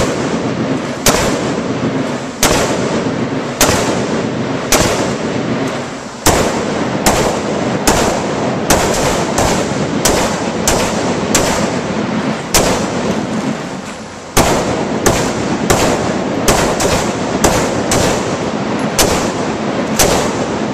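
AR-15 carbine gunfire: a long string of shots, each ringing out with a heavy echo that fills the gaps. The shots come about once a second at first, then quicken to nearly two a second after a short lull past the middle.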